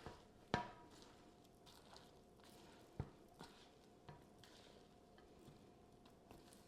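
Sticky marshmallow-coated Rice Krispies mixture being scraped out of a mixing bowl into a baking pan: a few faint knocks and clicks of the spoon against bowl and pan over near silence, the sharpest about half a second in and another about three seconds in.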